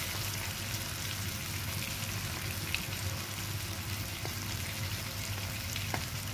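Flour-dusted chicken pieces searing skin side down in hot oil in a nonstick pan: a steady sizzle with a few scattered pops.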